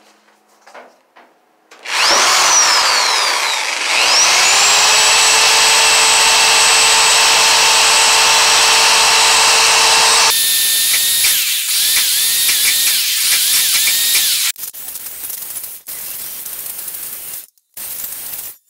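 Electric angle grinder spinning up and running with a steady high whine, then grinding sheet metal with a wavering pitch from about ten seconds in. A few short bursts of the tool near the end.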